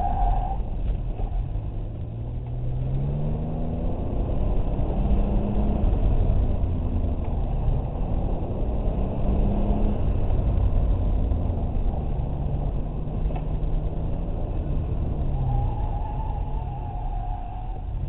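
A GMC Syclone's turbocharged 4.3-litre V6 runs hard through an autocross course, its pitch climbing and dropping again and again as the throttle is worked between cones. Heavy low road and wind rumble sits under it, and a higher steady whine comes in for a couple of seconds near the end.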